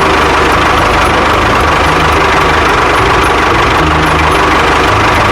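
Motor of a small DIY model tractor running steadily, a constant hum with a whine over it.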